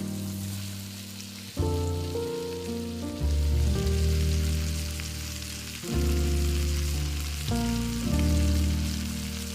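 Background music of sustained chords with a deep bass, changing every couple of seconds, over a steady crackling hiss of food frying in a pan.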